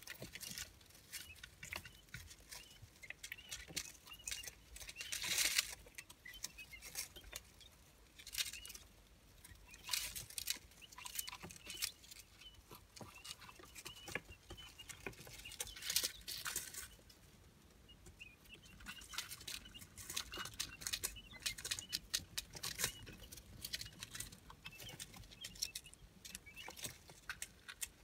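Three-day-old quail chicks scratching and pecking about in shredded paper bedding: an irregular patter of rustles and taps, louder in several short spells, with faint high peeping.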